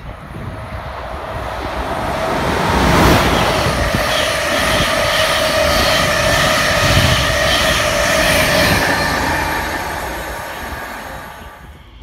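Locomotive-hauled intercity train of Mark 3 coaches running through the station at speed without stopping. The rush of wheels and coaches swells to a peak with a steady high whine, then fades as the train moves away.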